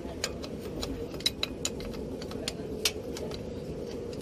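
Irregular sharp metallic clicks and taps of hand work on a truck starter motor's fittings, over a steady background hum.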